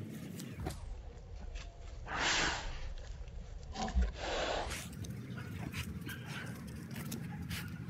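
Dogs sniffing and snorting close up as they nose at gopher holes, with two long breathy snorts about two and four seconds in and a low bump at the second one.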